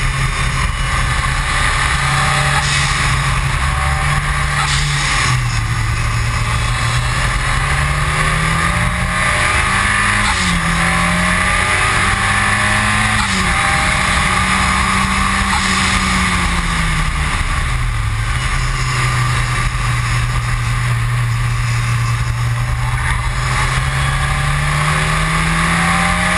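Ford Escort RS Cosworth's turbocharged 2.0-litre four-cylinder engine pulling hard on track. Its pitch climbs through the gears with two quick drops at the upshifts, falls away as the car slows in the middle, holds steady, then climbs again near the end. A steady rush of road and wind noise runs under it.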